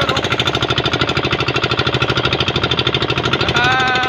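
Small fishing boat's engine running steadily under way, a rapid, even beat of firing pulses. Near the end a man's voice briefly holds a note over it.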